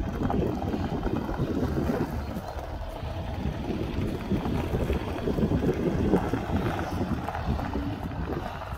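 Wind buffeting the microphone, with a Hymer motorhome's engine running as it drives slowly past and turns to park.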